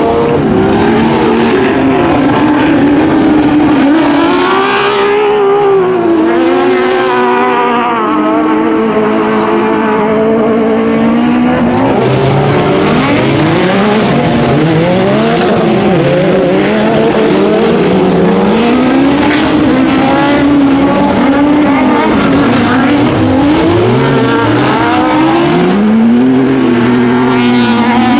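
Super Buggy autocross racing buggies' engines running hard, revving up and dropping back again and again as they race through corners on the dirt track, with more than one engine heard at once.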